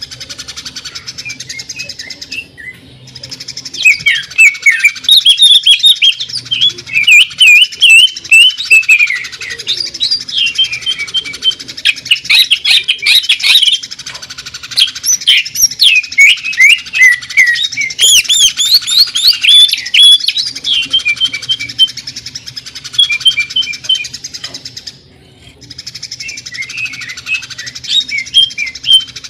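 Greater green leafbird (cucak ijo) singing loudly and fast, a dense run of quick rising and falling whistled notes broken by rapid mechanical-sounding rattles likened to a sewing machine. The song pauses briefly about 3 seconds in and again about 25 seconds in.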